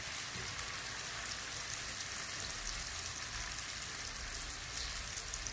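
Popiah-wrapped seaweed pieces deep-frying in hot oil in a wok: a steady sizzle with many fine crackles.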